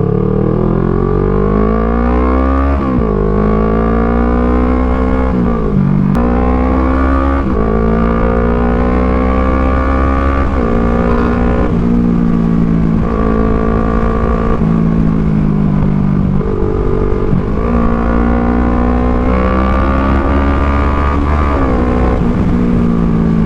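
Kawasaki Z650's parallel-twin engine, breathing through an Orion full exhaust, accelerating hard under way. The pitch climbs through the revs and drops sharply at each gear change, over and over.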